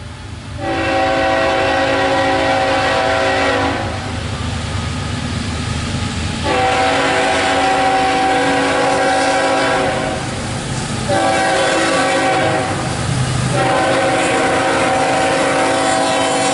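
Horn of the lead locomotive on an approaching CSX double-stack intermodal freight train, sounding three long blasts for a grade crossing, the third still sounding at the end. A low rumble of the train runs underneath.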